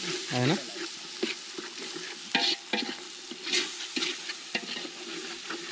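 Spiced onion-tomato masala for a chicken curry sizzling in a cooking pot while a metal spoon stirs it, with a steady hiss and sharp scrapes and clicks of the spoon against the pot.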